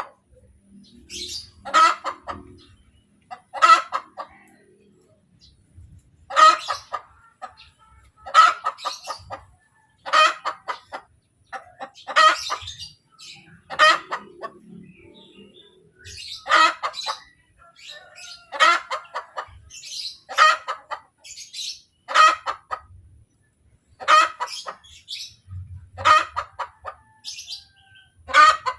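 Hen's egg-laying cackle: a loud, short call repeated about every two seconds, with quieter clucks in between, the call a hen gives after laying an egg.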